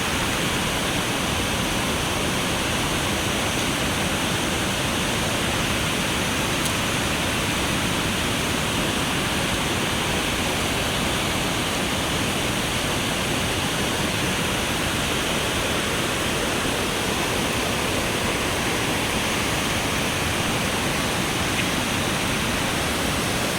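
Steady rushing of water, an even hiss and rumble with no breaks or surges.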